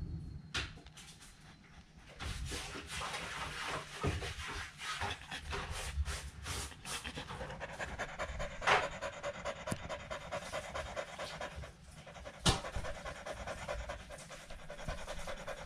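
A Kelpie panting fast and heavily, starting about two seconds in: the anxious panting of a storm-phobic dog. Two sharp knocks stand out, one just past the middle and one about four seconds later.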